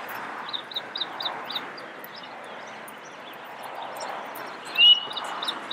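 Referee's whistle blown once about five seconds in, a single clear note that rises and then holds for about a second, the loudest sound here. Earlier, a bird gives a quick run of short high chirps over steady outdoor background noise.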